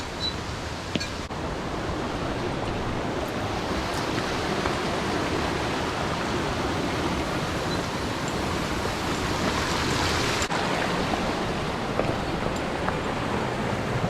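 Steady rush of mountain stream water with no change in level, with a few faint clicks in the first second or so.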